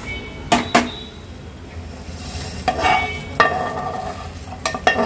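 Split mung dal being dry-roasted in a nonstick frying pan, the grains rattling as a spoon stirs and scrapes them, with sharp clicks of the spoon against the pan. About three seconds in, ringing metal clinks sound as the roasted dal is scraped out of the pan into a steel bowl.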